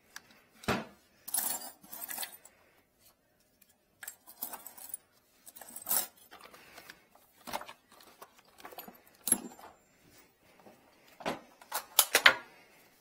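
Small metal tools and chains clinking and rattling as they are rummaged through in an aluminium tool case, in short spells of jangling with pauses between.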